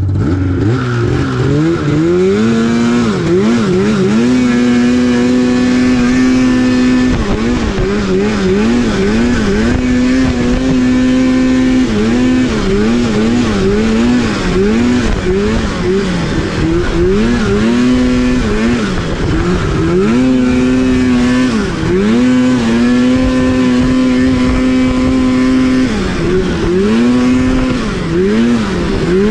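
Older Polaris RMK snowmobile's two-stroke engine revving up and down while climbing through snow, with quick throttle blips between stretches of a few seconds held at steady high revs. The engine is expected to run right at full throttle now that a mismatched CDI box and flywheel, the cause of its wide-open-throttle trouble, have been swapped.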